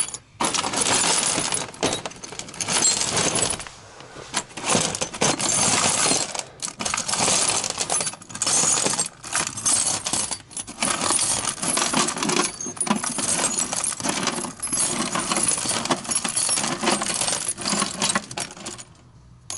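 Hands rummaging through a box of loose metal screws, bolts and washers: a busy metallic clatter and jingle that stops briefly a few times.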